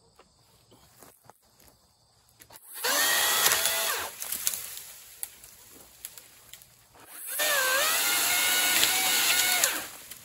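Makita XAU02PTB 36V cordless pole saw's electric motor and chain running in two bursts, about one and a half and two and a half seconds long, while cutting overhead branches. Each burst is a steady high whine, and the pitch dips briefly early in the second burst.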